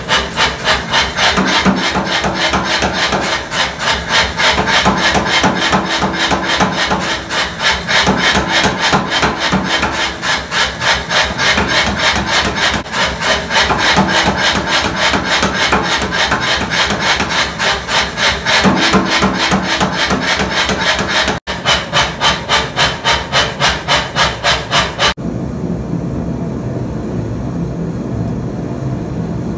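Power hammer striking a red-hot steel bar in fast, even blows, about four a second, which stop about 25 seconds in; after that only a steady machine hum remains.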